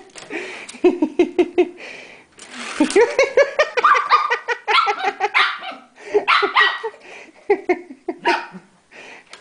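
Pomeranian barking in short, quick runs while a child laughs.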